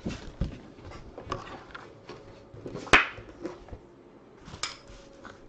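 Handling noise of paper and cardboard items being moved on a table: scattered rustles and light knocks, with a sharp click about three seconds in.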